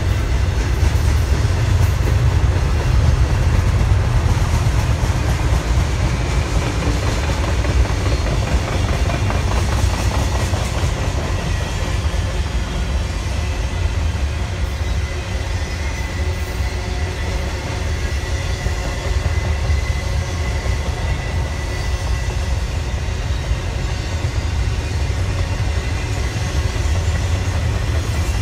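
Double-stack intermodal freight cars rolling past: a steady low rumble of steel wheels on rail, with clickety-clack over the rail joints.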